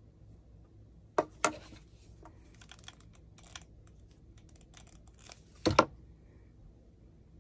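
Small wooden craft pieces and tools handled and set down on a wooden tabletop: two sharp knocks about a second in, a run of light clicks and rattles, then a louder double knock near the end.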